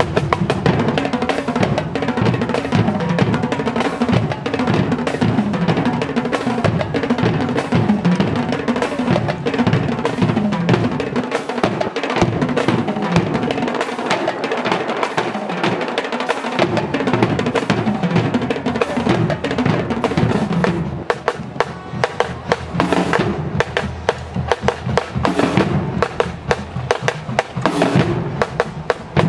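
Marching drumline playing a cadence: snare drums, tenor drums and bass drums struck in dense, rapid patterns. The bass drums drop out for a few seconds near the middle, then come back in.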